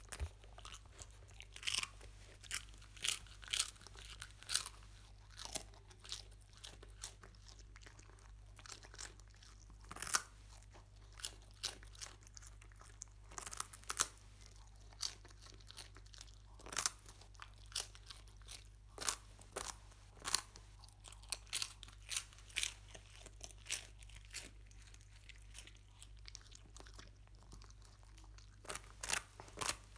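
A dog chewing and crunching strawberry-flavoured puffed rice close to the microphone: irregular sharp crunches in quick clusters, with short pauses between mouthfuls.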